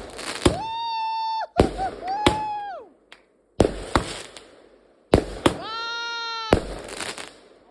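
Fireworks salute going off: a run of sharp bangs, several followed by a whistling tone about a second long that drops in pitch as it dies away.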